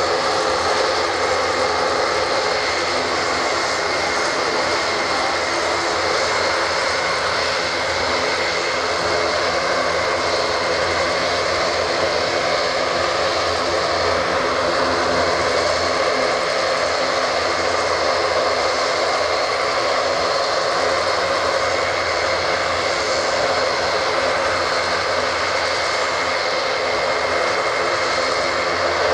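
Four turboprop engines of an Airbus A400M Atlas transport running steadily on the ground, propellers turning: a loud, even drone with steady high tones held at constant pitch.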